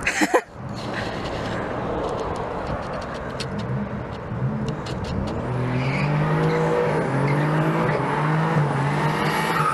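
A car engine revving hard as the car accelerates up the street toward the microphone, its pitch rising and dipping through gear changes and growing louder over the second half. A brief bump at the very start.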